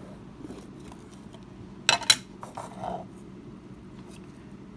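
Two sharp plastic clicks about two seconds in, then a softer knock, as the removable grounds container of a Cuisinart burr coffee grinder is handled.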